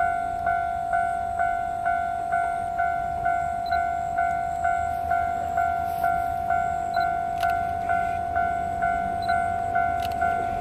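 Railway level-crossing warning bell ringing steadily, about two strikes a second, warning of an approaching train.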